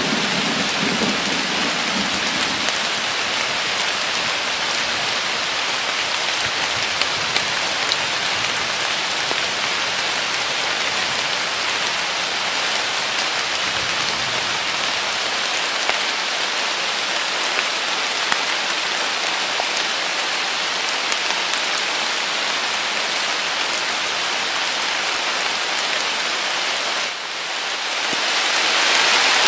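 Heavy rain falling steadily, with scattered drop clicks in the downpour. The last of a low thunder rumble fades out in the first couple of seconds. Near the end the rain dips briefly and comes back louder.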